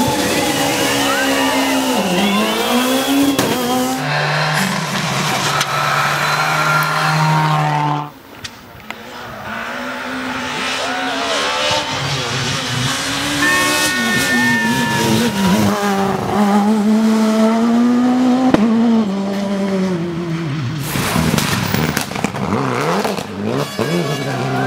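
Rally car engines, several cars in turn, accelerating hard, revving up and down through gear changes. About four seconds in, one engine holds a steady note. A sharp drop comes about eight seconds in, after which the engine note builds again.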